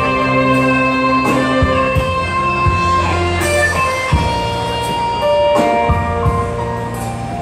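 Live band playing an instrumental break in a slow Hokkien ballad, a guitar leading over long held keyboard notes and bass.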